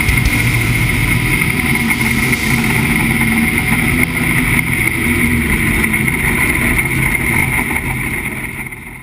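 Jet sprint boat's engine idling steadily, a rough low drone with a constant high whine, as the boat is brought onto its trailer; it fades out near the end.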